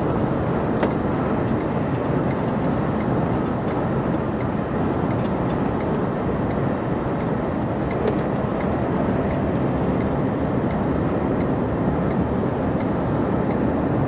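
Steady engine and road noise of a truck cruising along the highway, heard from inside the cab.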